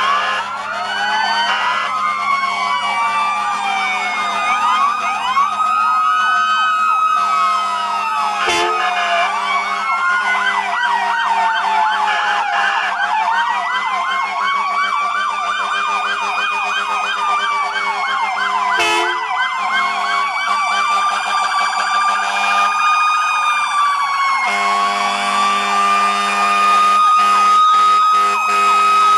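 Several emergency vehicle sirens sounding at once as fire apparatus and ambulances pull out, their fast yelping sweeps and slower rising-and-falling wails overlapping. Two short sharp knocks cut through, about a third and two-thirds of the way in.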